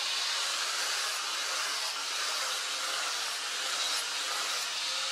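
Angle grinder with a flap disc running against a steel spear blade, a steady whirring grind at an even level.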